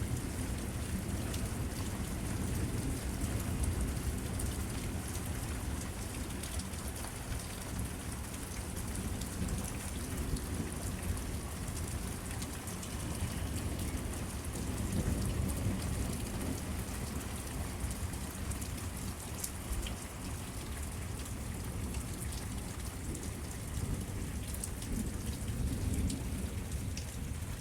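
Steady rain falling, with low rumbling thunder underneath that swells a few times.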